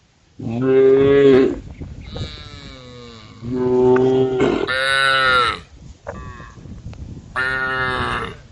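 Cows mooing again and again: several long, loud moos, some falling in pitch at the end, with a few quieter calls between them.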